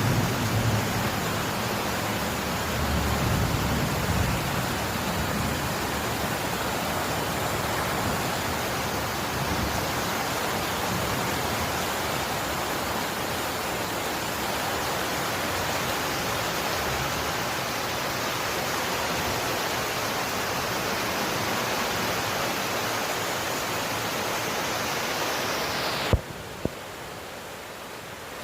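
Heavy rain falling: a steady, even hiss that cuts off abruptly about 26 seconds in with a click, giving way to a quieter, duller rain sound.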